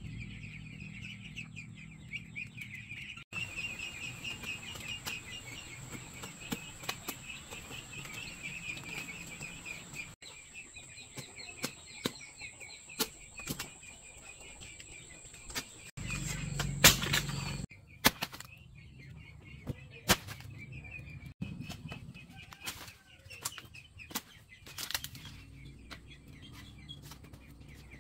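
Farmyard ambience of birds chirping and fowl, with a steady high tone for much of it. Scattered short knocks and clicks from cutting and handling jackfruit, and one loud thump about seventeen seconds in.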